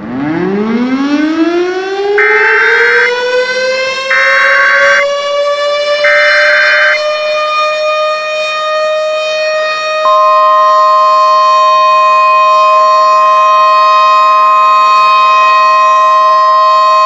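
Civil-defense siren winding up from a low growl to a steady wail, the start of an emergency alert. Over it come three short screeching bursts of EAS header data about two seconds apart, and about ten seconds in a steady single-pitch weather-radio warning tone joins and holds.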